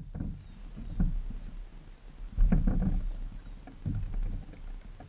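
Thuds and knocks of a person moving and kneeling on a homemade catamaran's wooden deck, over a low rumble. There are three heavier clusters, about a second and a half apart.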